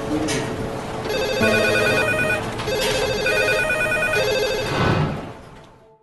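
Electronic desk telephone ringing: two trilling rings starting about a second in, then the sound fades away near the end.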